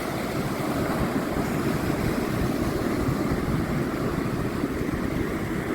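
Steady wash of ocean surf breaking, with wind buffeting the microphone.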